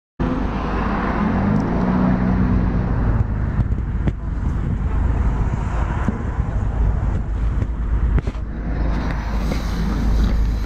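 Car driving on the road: a steady low rumble of engine and road noise.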